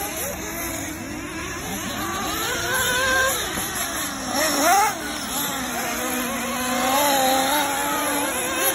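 Several radio-controlled 1/8-scale off-road buggies racing, their motors whining and revving up and down in overlapping rising and falling pitches.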